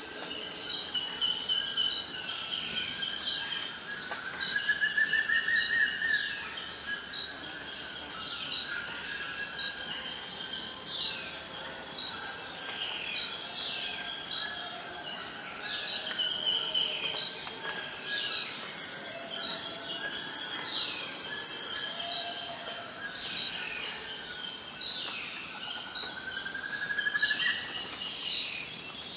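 Tropical forest ambience: a steady high-pitched insect drone, with many short falling bird calls repeating throughout and twice a rising, buzzy call.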